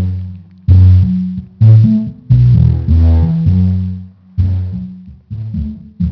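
Bass-heavy music played loudly through an old computer speaker set, deep bass notes struck one after another and fading, with brief gaps between phrases.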